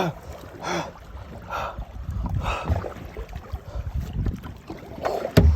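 Kayak paddle strokes dipping and pulling through the water in a steady rhythm, a stroke about every second, with wind rumbling on the microphone. A sharp knock near the end.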